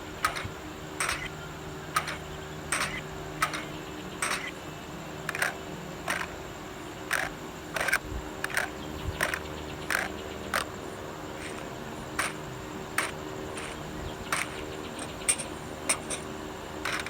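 Irregular light taps and clicks, about one or two a second, over a faint steady hum.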